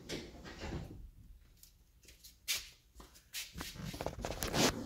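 Scattered light knocks, clicks and rustling from parts being handled, with a sharper knock about two and a half seconds in and busier rustling near the end.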